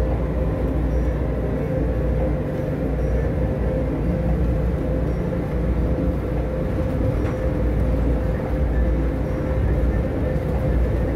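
Las Vegas Monorail car running between stations, heard from inside the cabin: a steady deep rumble with a constant hum over it.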